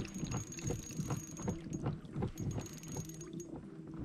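Fishing reel being cranked to bring in a hooked fish: a quick, even run of small mechanical clicks from the reel's gearing, several a second.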